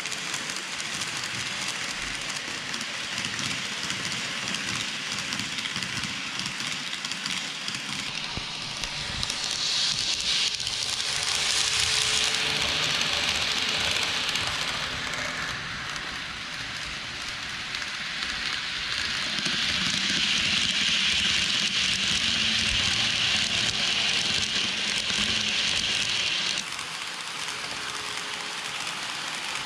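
N gauge model train running along the layout track: a steady, crackling rush of small wheels on rail and motor. It grows louder twice as the train runs close by, then drops suddenly near the end.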